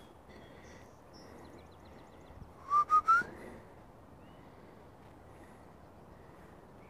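Three short whistled notes, each a little higher than the last, about three seconds in, over faint bird chirps.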